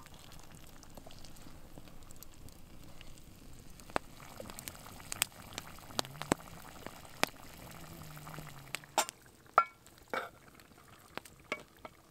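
Wood campfire crackling with scattered sharp pops, over the low simmer of a camp oven of stew on the coals. From about nine seconds in come louder knocks and scrapes of a spoon in the pot as stew is served.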